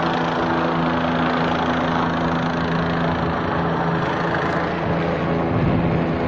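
Police helicopter hovering overhead, its rotor and engine making a steady drone with a low, even hum.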